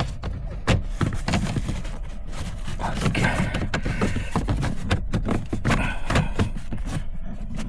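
Plastic lower dashboard trim panel of a Volvo V70 being worked loose and pulled off by hand: irregular clicks and knocks of plastic and clips, with scraping and rustling in between.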